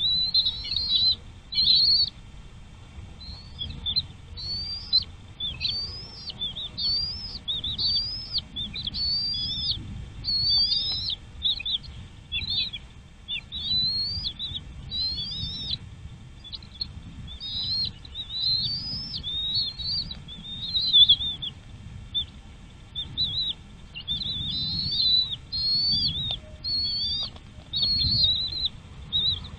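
Small bird chirping over and over, about one or two short high notes a second, each note rising and then dropping, with a brief pause near two-thirds of the way through. A low rumble runs underneath.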